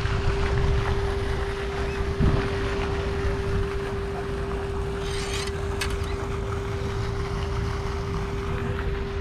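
Wind buffeting the microphone, with a steady single-pitched hum under it and a few faint ticks about five to six seconds in.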